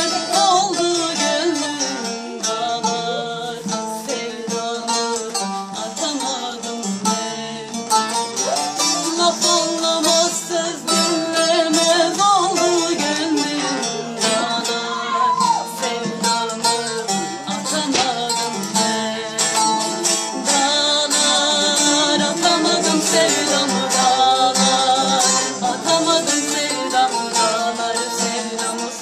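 Two bağlamas (long-necked saz lutes) played together in a folk tune, with dense, rapid plucked notes and a woman's singing voice coming in at times.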